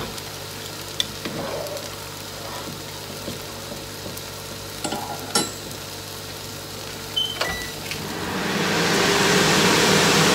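Noodles boiling in a pot on a gas stove, with a few light clicks and a clink of kitchenware. About eight seconds in, a steady rushing noise swells up and holds.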